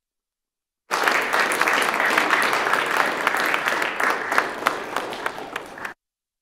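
A crowd of people in a large chamber applauding. The applause starts suddenly about a second in, thins toward the end into scattered separate claps, then cuts off abruptly.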